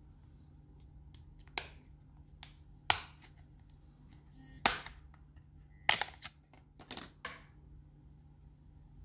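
Plastic clips of an ASUS Zenfone Zoom smartphone's back cover snapping loose one after another as the cover is pried off by fingernail: a series of sharp clicks, loudest about three and six seconds in.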